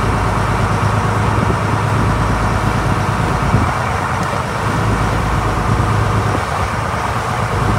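Sport-fishing boat under way: the engine drones steadily under the rushing wash of the wake and the wind.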